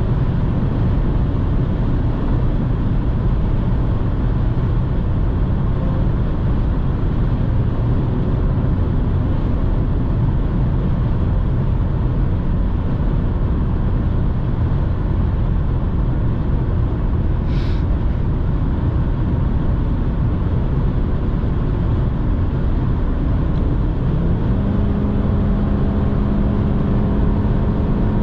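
Inside the cabin of a 2006 BMW 118i, its 2.0-litre four-cylinder petrol engine hums under heavy wind and tyre noise at high autobahn speed. Partway through comes one short click. About 24 seconds in, the engine note rises and then holds at a higher pitch.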